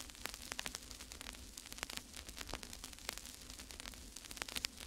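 Faint steady hiss and low hum, dotted with irregular crackling clicks.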